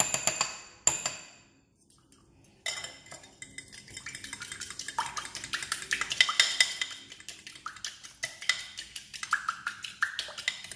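Metal fork beating egg and milk for French toast batter in a square ceramic dish, the tines clinking against the dish. A couple of clinks come first, then a short pause, then from about three seconds in a fast, steady run of clinks.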